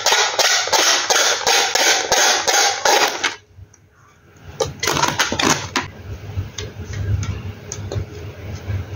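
Inflated latex balloon squeezed and rubbed between hands: a fast run of rubbery squeaks and creaks, about four or five a second, that stops about three seconds in, followed by softer scattered handling creaks.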